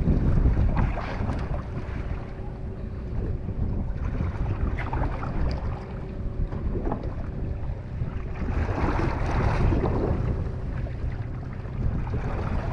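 Wind buffeting the microphone on a fishing boat's open deck, over the boat engine's steady low hum.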